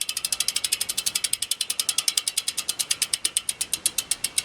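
Rear freehub of a road bike on a work stand ticking rapidly as the spun rear wheel freewheels, about fifteen even clicks a second. The wheel is now properly seated and spinning freely.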